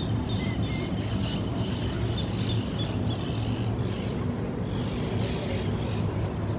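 Steady low droning hum under outdoor suburban ambience, the background 'Hum' at low intensity as the recordist calls it, with birds chirping faintly over it.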